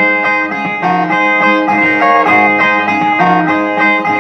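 Viola nordestina (the steel-strung guitar of Northeast Brazilian repente) plucked alone, playing the instrumental break between two improvised sung stanzas.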